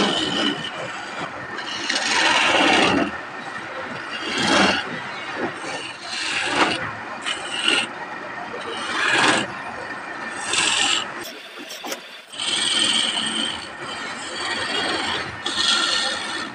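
Hand-held turning chisel cutting a spinning wooden spindle on a wood lathe: a rasping scrape of steel on wood that comes in repeated passes, some longer and louder than others.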